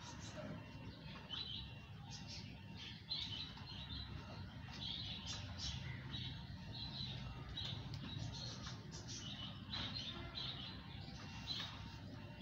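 Small birds chirping, short high calls about twice a second, over a faint low rumble.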